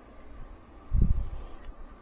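A single low, dull thump about a second in, with a faint tick shortly after, against a low steady background.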